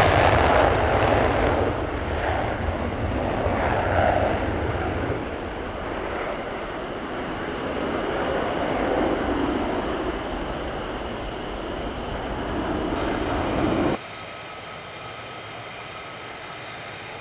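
F-15E Strike Eagle's twin jet engines in afterburner on takeoff: a loud roar that slowly fades with some swells as the jet climbs away. About fourteen seconds in it cuts suddenly to a much quieter, steady jet hum with a few steady tones.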